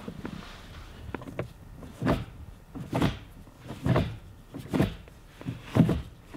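Six-speed manual gear lever of a 2016 Ford Focus RS shifted from first through sixth, a short mechanical clunk about once a second as it goes into each gear. The shifter's soft rubber bushings have just been replaced with stiff billet aluminum ones, giving a tighter, crisper shift.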